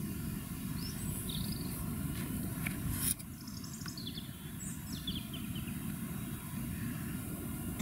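Low, steady rumble of a distant BR Black 5 4-6-0 steam locomotive working hard with its train, while small birds give short chirping calls several times over it. A sharp click comes about three seconds in, after which the sound is slightly quieter.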